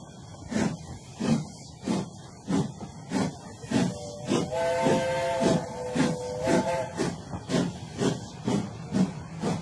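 Steam locomotive chuffing in a steady rhythm, about three chuffs every two seconds, with a multi-tone steam whistle blowing for about two and a half seconds in the middle.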